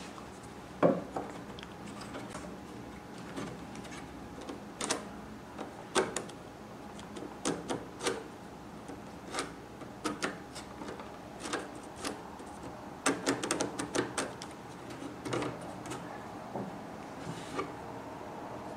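Scattered, irregular light clicks and taps of a small wooden marking jig and a mechanical pencil being handled on and against an oak frame corner on a wooden workbench, the sharpest knock about a second in.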